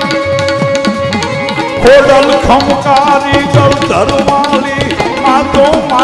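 Gujarati devotional folk music led by a dak, the hourglass drum of Mataji worship, beaten in a steady rhythm whose pitch swoops up and down, over held accompaniment notes. About two seconds in, a loud wavering melody line comes in over the drum.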